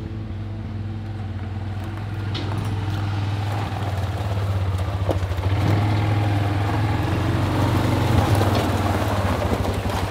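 Four-wheeler (ATV) engine running as the machine drives up along the gravel path, getting louder as it approaches.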